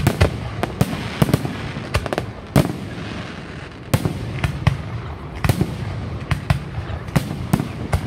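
Aerial fireworks shells bursting in quick succession: an irregular run of sharp bangs and cracks, several a second.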